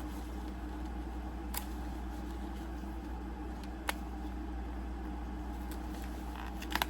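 Steady low background hum, like a fan or appliance running, with a sharp light click twice and a quick run of small clicks near the end, from small items being handled.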